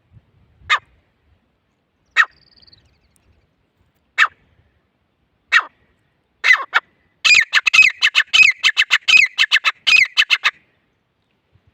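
Grey francolin calling: a few single sharp calls spaced a second and a half to two seconds apart, then from about seven seconds in a fast run of loud, repeated notes for about three seconds.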